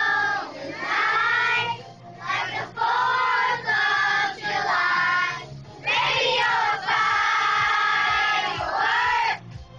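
A group of children singing together as a choir over a backing track, in sung phrases of a second or two separated by short breaks.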